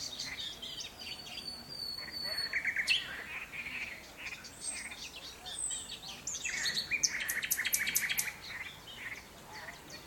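Common nightingale singing a run of varied phrases of whistles and repeated notes, with a fast rattling trill about seven seconds in.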